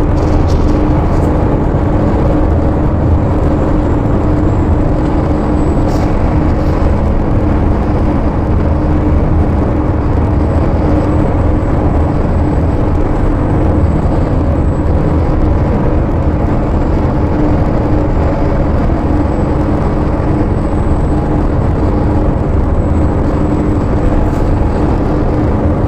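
Steady rumble and road noise of a vehicle travelling alongside a freight train, with a constant low hum.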